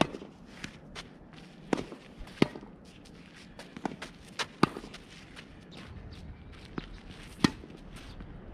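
Sneakers stepping and scuffing on a dirt tennis court, with sharp knocks of tennis-ball impacts scattered through; the loudest three come about two and a half, four and a half and seven and a half seconds in.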